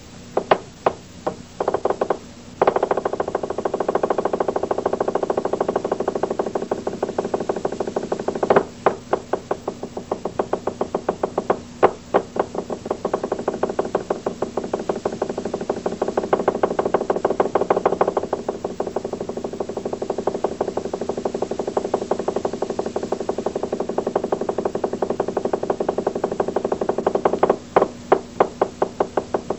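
A fast run of evenly spaced percussive strikes. It starts as separate hits, turns into a dense, continuous roll about three seconds in, with a few louder accents, and breaks back into separate hits near the end.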